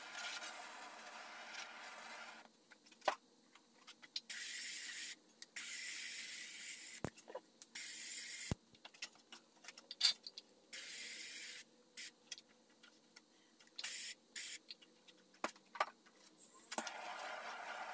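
Powder coating gun spraying in repeated short bursts of hissing air, switched on and off about seven times, with sharp clicks between bursts.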